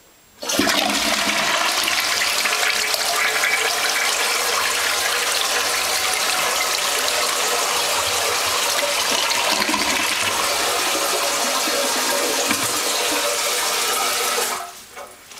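1978 American Standard front-trap toilet flushing: a sudden rush of water starts about half a second in, runs steadily for about fourteen seconds, then falls away near the end.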